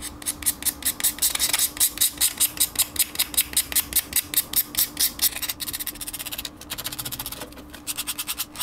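Rapid back-and-forth scratching on the smooth face of a small hardwood block, about five strokes a second, roughening it to give epoxy a grip. In the last few seconds the strokes turn lighter and quicker, with short breaks between runs.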